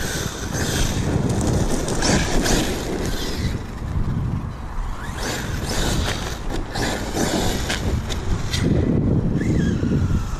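1/8-scale Arrma Kraton EXB RC truggy running off-road on its Max6 brushless system, the motor's whine rising and falling with the throttle. Scattered sharp clicks of grit and stones are heard under heavy wind rumble on the microphone.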